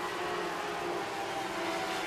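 Sprint car engines running on a dirt oval during green-flag racing, a steady droning hum over a haze of track noise.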